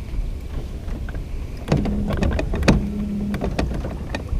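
Spinning reel being cranked in two short spurts, a whirring with sharp clicks, over a steady low rumble of wind on the microphone.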